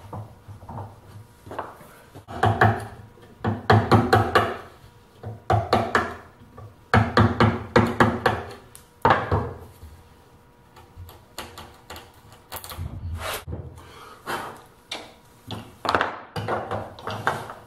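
A round-headed mallet striking a chisel, chopping out counterbores in a wooden board: runs of quick knocks with short pauses between.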